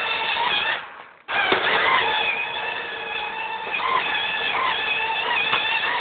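M-288 robot vacuum cleaner running: a steady whirring with wavering high tones. The sound drops out for a moment about a second in, then comes back with a click.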